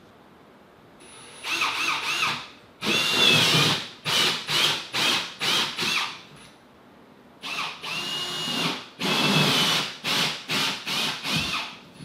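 Cordless drill-driver run in bursts at a mini split's metal wall-mounting plate. It comes in two spells: each is a longer run whose pitch rises as the motor spins up, then four or five short trigger bursts.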